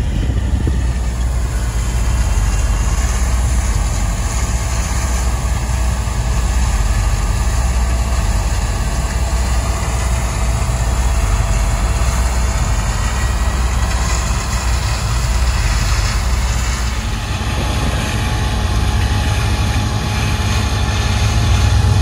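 Steady low engine rumble heard from inside a pickup truck cab, with a combine harvester cutting soybeans nearby; it grows slightly louder near the end.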